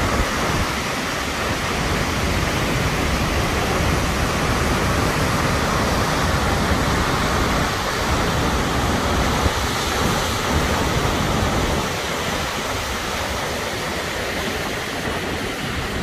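Takakkaw Falls, a tall waterfall, pouring down the cliff, heard close to its base as a loud, steady rush of falling water with a deep rumble under it.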